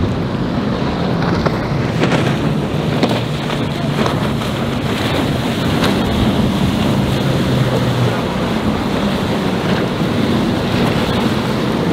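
Mercury outboard motor on a passing skiff running at speed: a steady engine drone over the rush of water and wind buffeting the microphone. The engine drone fades about two-thirds of the way through, leaving wind and water noise.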